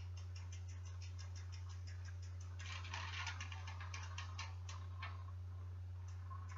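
Bicycle freewheel ticking steadily, about six clicks a second, as the chain and cranks are turned while wax lube is dripped onto the chain, with a denser clatter of clicks about three seconds in. A steady low hum runs underneath.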